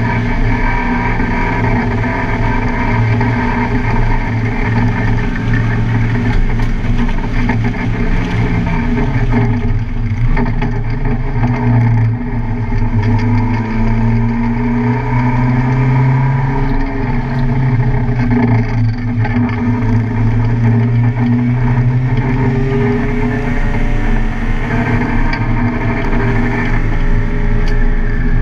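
Car engine being driven hard on a race track, running loud and steady. Its note falls about eight to ten seconds in, then climbs again and rises and falls several more times as the car speeds up and slows.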